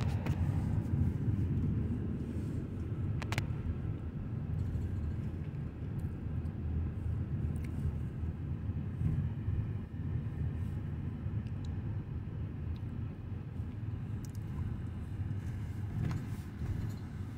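Car cabin noise while driving slowly: a steady low rumble of engine and tyres on the road, with a faint click about three seconds in.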